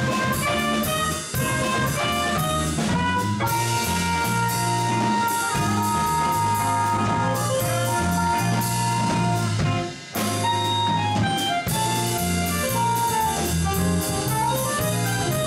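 Small jazz band playing: a lead melody in long held notes over a moving bass line and drum kit with cymbals.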